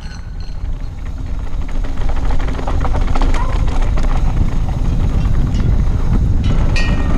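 Mountain bike riding down a loose dirt and gravel trail: wind buffeting the camera microphone and tyres crunching over stones, with steady rattling and clatter from the bike. It grows louder over the first two seconds as speed picks up, then holds.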